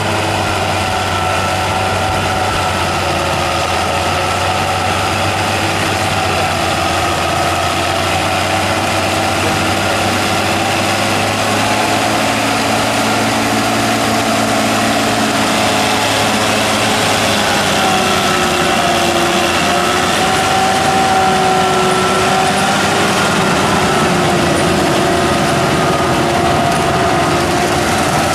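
Farm tractor's engine running steadily under load while it pulls an FAE CH-45 rotary strip tiller through sugarcane-field soil, with the engine note wavering slightly.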